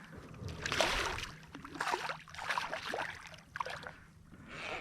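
Shallow water sloshing and splashing around a fishing kayak in irregular short bursts while a hooked redfish is played.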